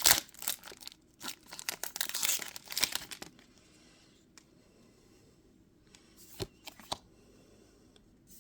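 A foil trading-card booster pack wrapper being torn open and crinkled for about three seconds, then quiet with a couple of faint clicks.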